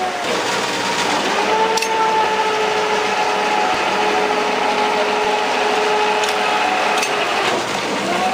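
Cincinnati Hypro metal planer's drive running with a steady whine, the pitch swinging down and back up about a second in and again near the end as the long table reverses at the end of its stroke.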